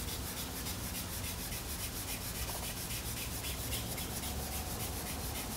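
2000-grit sandpaper wet-sanding a car's black clear coat under fingertip pressure: a steady scratchy rasp in quick, even back-and-forth strokes, about five a second. There is little squeak, which is the sign of light pressure, since squeak normally means too much pressure.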